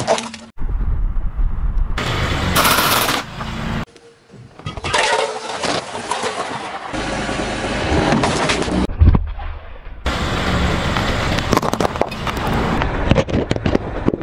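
Car tyre rolling over objects on asphalt and crushing them: a run of crackling, crunching and popping across several short cuts, with the loudest single bang about nine seconds in.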